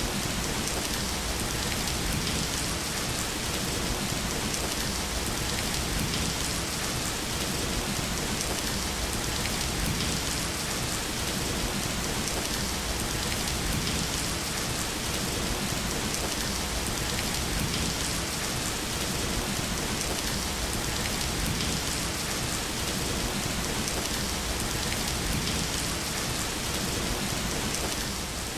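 Steady rain falling on a surface: an even, unbroken hiss of many drops that neither swells nor fades.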